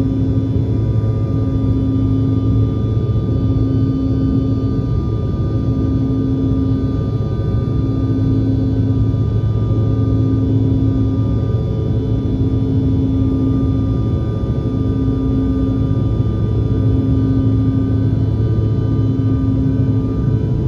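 Bombardier CRJ-700's twin General Electric CF34 turbofan jet engines running steadily at high power during takeoff, a low hum with a throbbing tone that swells and fades about every two seconds.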